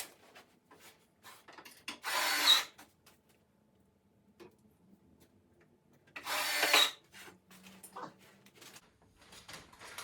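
Wooden potting bench parts being handled and fitted: two short scraping rubs, about 2 s and 6 s in, among small knocks and clicks.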